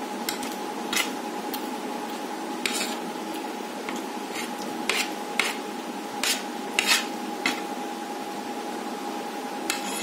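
Steel spoon scraping and clinking against a ceramic plate as food is scooped up, a dozen or so short scrapes, over a steady background hum.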